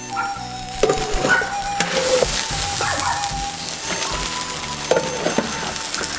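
Meat being blanched in a wok at a rolling boil, a steady hiss and bubbling. A bamboo strainer scrapes and knocks against the wok a few times as pieces are scooped out. Soft background music with long held notes plays underneath.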